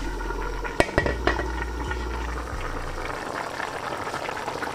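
Lamb stock and soaked sela basmati rice boiling in a large pot, a steady bubbling as the rice cooks until the water is nearly absorbed. A sharp click comes a little under a second in.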